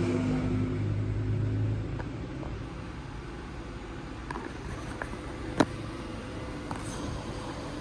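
A steady mechanical hum with a low tone that fades about two seconds in, leaving steady background noise marked by a few sharp clicks and one louder knock a little past the middle.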